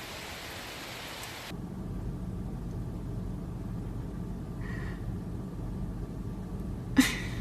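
Steady hiss of falling water, which cuts off abruptly after about a second and a half. A low, steady rumble follows, with a faint brief tone partway through and a sharp click near the end.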